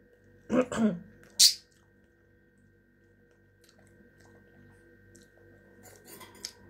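A woman eating raspberries: a short voiced sound from her about half a second in, then a sharp hissing breath a second later. After that come quiet eating sounds and a few light clicks over a steady electrical hum.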